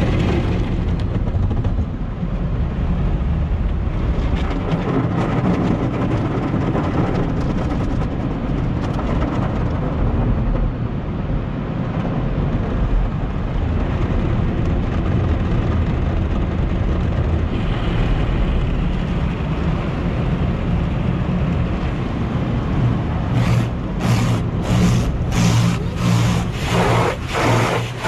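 Automatic car wash heard from inside a car's cabin: water and soap spraying over the body and glass over a steady low rumble of the wash machinery. In the last few seconds the noise comes in sharp rushes, about two a second.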